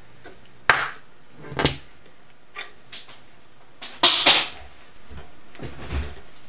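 A handful of sharp knocks and clatters from objects being handled and set down on a workbench, spaced irregularly, with the loudest, noisiest clatter about four seconds in.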